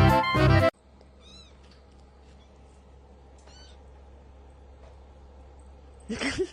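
Background music cuts off about a second in; after two faint high squeaks, a cat gives one short, loud meow near the end.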